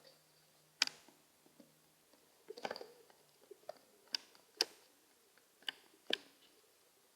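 Pigeons' beaks tapping and pecking on a hard surface: sharp, irregular clicks, about eight in all, with a quick flurry of taps about two and a half seconds in.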